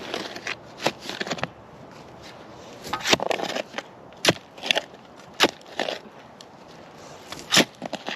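A hand digging tool striking and scraping into rocky clay soil around a stump: about eight irregular hits, a few seconds apart, with gritty scraping between them.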